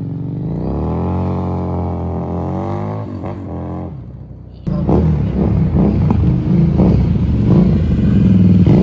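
Harley-Davidson V-twin motorcycle engine running, rising in pitch about a second in as the bike pulls away. About halfway the sound turns suddenly louder and rougher, with a jumble of knocks.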